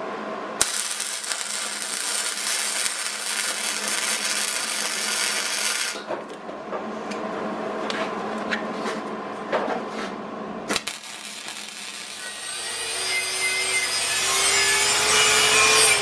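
Wire-feed welder arc crackling as a 1/8-inch steel corner plate is welded onto a steel tube seat bracket, in a run of about five seconds. After a quieter gap with a few clicks, an angle grinder runs on the steel for the last few seconds, its whine slowly rising.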